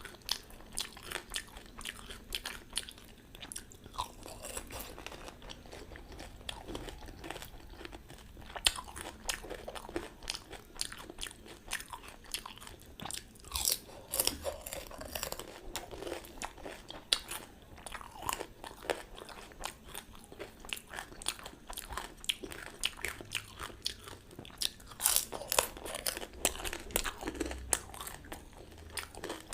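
Panipuri being eaten: the crisp hollow puri shells crunch and crackle as they are bitten and chewed, in many short crunches one after another.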